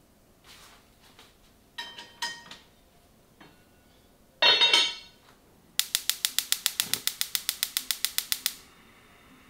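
Kitchen utensils handled: two ringing clinks of ceramic or glass, a brief loud whoosh, then a rapid even run of sharp clicks, about nine a second, lasting nearly three seconds.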